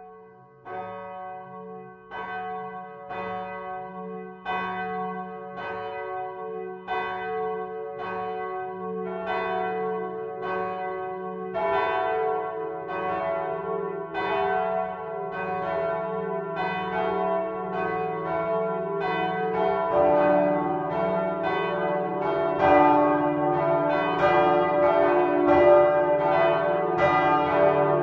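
Swinging church bells cast by Michiels of Tournai in 1957 are being rung. At first one bell strikes about once every second and a bit. A second bell joins about a third of the way in, and a third about two-thirds in, so the peal grows fuller and louder.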